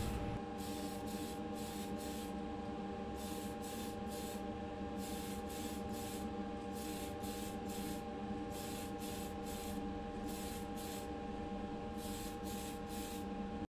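Aerosol spray-paint can hissing in dozens of short bursts, a fraction of a second each and often in quick twos and threes, as a colour coat is sprayed onto a small diecast part. A steady hum runs beneath the spraying.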